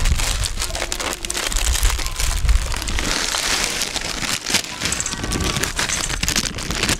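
Plastic packet crinkling as it is handled and torn open, then dry soya chunks pouring out of it into an enamel bowl with a dense patter of small clicks, thickest about three to four seconds in.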